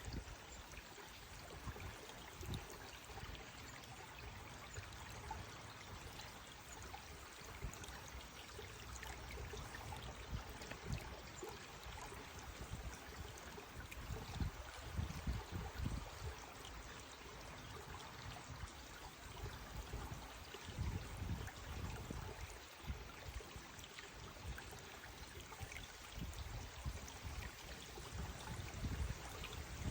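River water flowing steadily, a constant rushing and trickling, with irregular low rumbles swelling and fading, strongest about halfway through.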